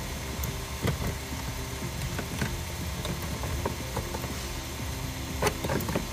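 Plastic centre-console trim being handled and fitted down around the manual shifter: a few light knocks and clicks, the loudest cluster about five and a half seconds in, over a steady low hum.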